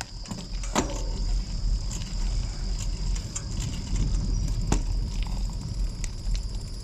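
Bicycle rolling downhill on a wet road: wind buffeting the microphone and tyre noise, with scattered sharp clicks and rattles and a steady high-pitched whine.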